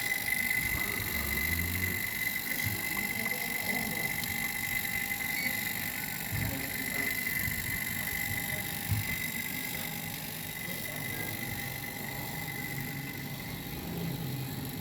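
Refrigeration vacuum pump running steadily with a constant high whine, evacuating an R22 air conditioner system before charging; a few faint knocks in the middle.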